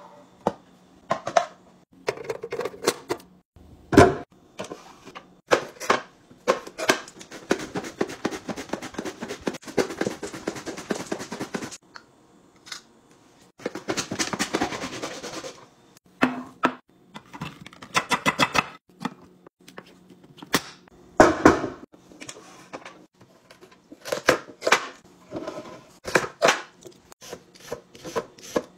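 Clicks and knocks of a plastic vegetable slicer and its clear catch container being handled, with two long runs of rapid scraping strokes as cucumber is pushed across the blade. Near the end come short scraping strokes of a vegetable peeler on a carrot.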